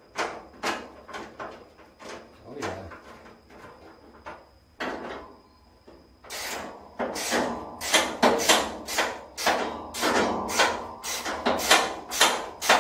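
A hand tool working on a hood hinge bolt. Scattered clicks and knocks come first, then from about halfway a louder run of quick, even strokes, about three a second.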